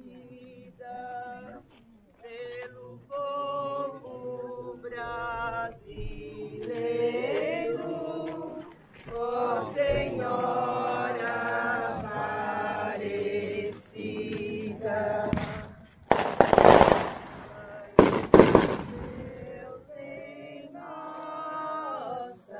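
A group of people singing together as they walk in procession, with two loud firecracker bangs near the end, about two seconds apart.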